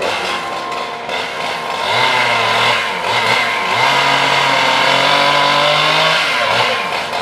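A petrol engine on the tree-removal equipment revving up twice and holding high revs, first briefly and then for about three seconds, before dropping back.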